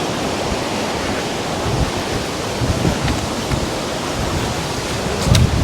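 Steady rush of sea surf and wind on an open coast, with gusts buffeting the microphone. A short low thump comes near the end.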